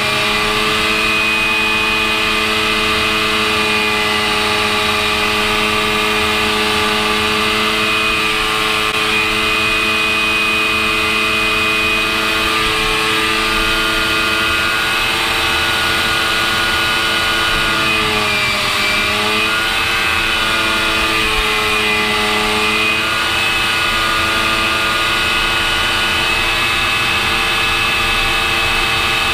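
Harrier II Plus jet engine heard from inside the cockpit: a steady multi-tone whine over rushing air, the pitch dipping briefly and recovering about two thirds of the way through.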